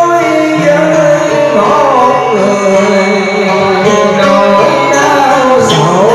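Vietnamese cải lương music: a melody of held notes that slide and waver in pitch over a steady accompaniment.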